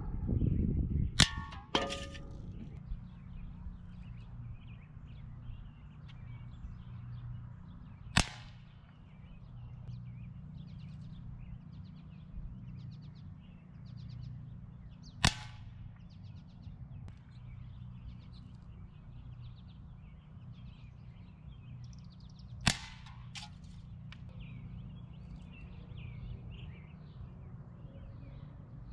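Air-rifle shots striking aluminum soda cans set on a tree stump: about six sharp metallic clangs with a brief ring, several seconds apart, some of them coming in quick pairs.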